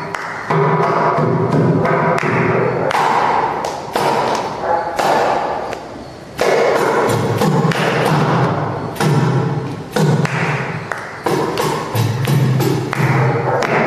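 Kanjira, the South Indian frame drum with a single pair of jingles, played in fast dense rhythmic strokes: crisp slaps and jingle rattle over repeated deep bass tones, with a short lull about six seconds in.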